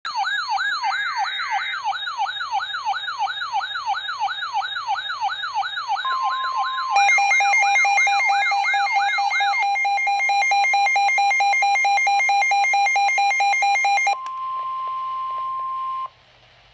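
Weather alert radio alarms sounding for a severe thunderstorm warning: a siren-like wail that sweeps up in pitch about three times a second, then a pulsing electronic alarm, then a steady single-pitch warning tone that cuts off sharply near the end.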